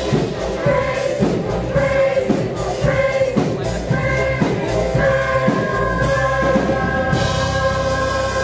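Choir singing a worship song over band accompaniment with a steady beat.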